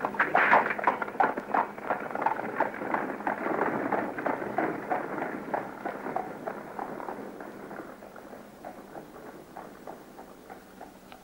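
Horses' hooves clattering in a rapid, irregular patter, loud at first and then fading gradually as they move away.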